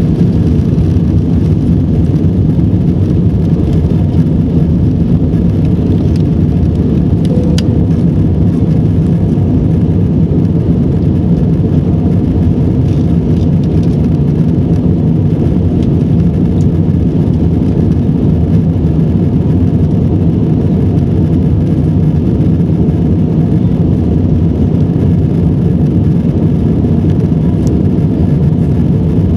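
Airbus A320 jet engines at climb power heard from inside the passenger cabin during lift-off and climb-out: a loud, steady, low roar that holds at an even level throughout.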